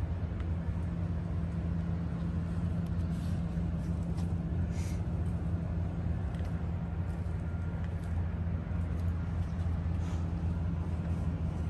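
A vehicle engine idling steadily, a low even hum, with a few faint taps.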